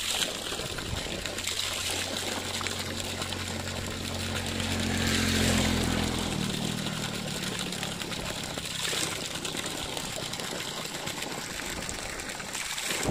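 Water gushing steadily from a borewell's outlet pipe and splashing onto the ground and into a puddle, broken up as hands cup the stream to wash a face and drink. A low steady hum runs under it and stops about six and a half seconds in.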